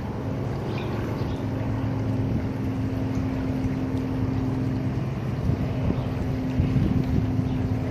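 A steady engine drone with a low, even hum that holds throughout, slightly louder near the end.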